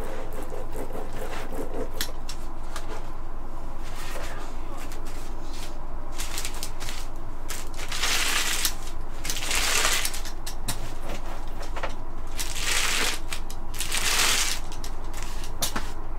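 A brayer rolling through craft paint on a plastic lid with scattered small clicks, then, from about eight seconds in, four louder crinkling sweeps as the brayer presses painted plastic bubble wrap down onto tissue paper.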